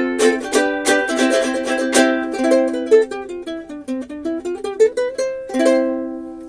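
Mana soprano ukulele of solid Hawaiian koa strummed in quick chords for about two seconds, then a run of single picked notes. It ends on one last chord, left to ring and fade.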